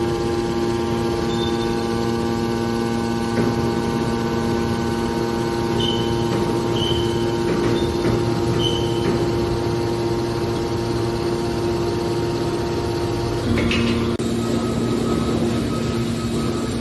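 Hydraulic can baler running: a steady motor and pump hum made of several constant tones. A few short high beeps come in the middle, and about thirteen seconds in the tone shifts with a light knock.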